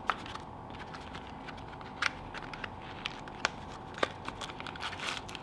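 Plastic packaging handled by hand: a few sharp clicks and taps of hard plastic cases with light crinkling of plastic bags, over a faint steady hum.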